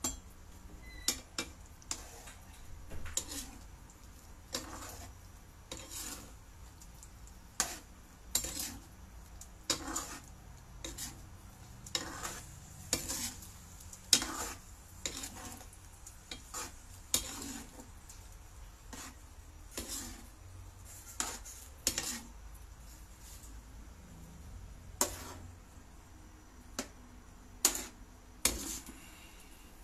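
Spatula scraping and knocking against a non-stick frying pan while stirring chunks of pork in a thick pork-blood stew, in irregular strokes about once a second with a short pause a little past the middle.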